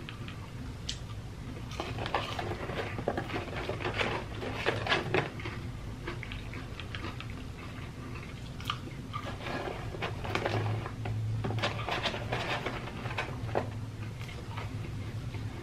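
Close-up chewing of crispy fried popcorn chicken: crackly crunches in two spells, starting about two seconds in and again about ten seconds in, over a low steady hum.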